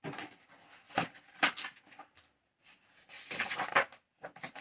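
A paper picture book being handled and opened: a couple of sharp paper knocks, then a longer rustle of pages being turned, and two quick clicks near the end.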